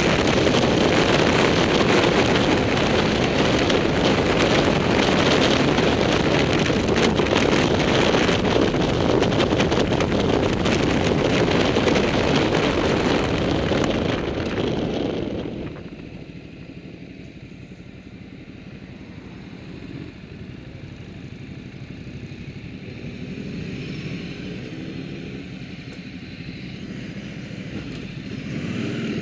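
Motorcycle riding at speed, with heavy wind rush on the microphone and the engine underneath. About halfway through the noise drops sharply as the bike slows. A quieter engine sound with faint rising and falling pitch runs through the rest.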